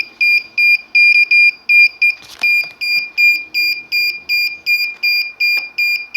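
DJI Phantom 4 remote controller beeping continuously: short, high-pitched beeps at about three a second, with a couple of faint handling clicks.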